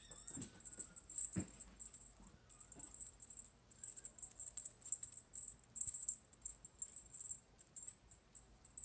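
Kittens at play with a feather wand toy: an irregular, high-pitched jingling rattle comes and goes throughout, with a soft thump about a second and a half in and a faint kitten mew just after the start.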